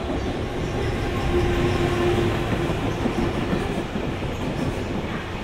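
JR Freight EF210 electric locomotive passing close by with a container freight train: a steady rumble and clatter of wheels on the rails. A steady hum rises out of the rumble for a couple of seconds about a second in.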